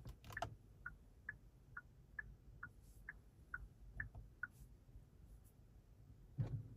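A 2025 Genesis G80's turn-signal indicator ticking in an alternating tick-tock, about nine ticks a little under half a second apart, starting just after a couple of sharp clicks and stopping about four and a half seconds in. A dull thump comes near the end.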